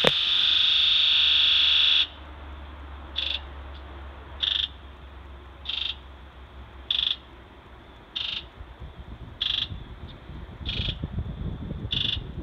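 Fuel injectors of a 7.3 Powerstroke diesel buzzing during a key-on, engine-off injector electrical self-test (buzz test): one long steady buzz that cuts off about two seconds in, then eight short buzzes evenly spaced about a second and a quarter apart, one for each injector. All eight buzz strongly, the sign that the injectors are good.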